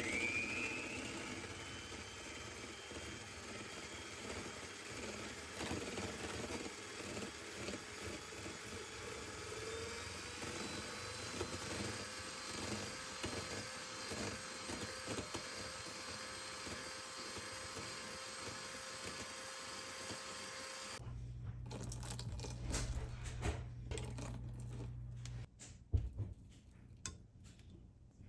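A small motor running steadily, starting with a brief rising whine and switching off about 21 seconds in, followed by a few light clicks and knocks.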